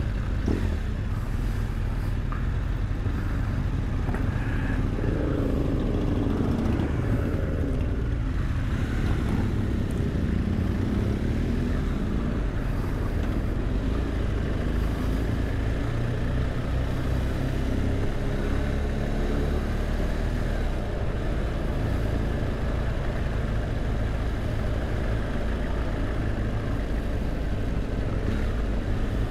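BMW R1200 GS Adventure's boxer twin engine running steadily in slow-moving traffic, its revs rising and falling a few times.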